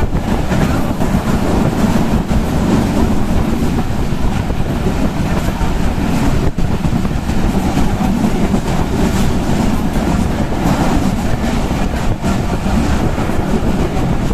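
Passenger coach of an intercity express running at about 80 km/h, heard from an open door: a steady, loud rumble of wheels on the rails with scattered clicks and wind noise.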